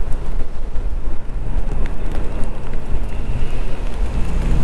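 Wind buffeting the microphone on the roof of a moving bus, over the low rumble of the bus and falling rain.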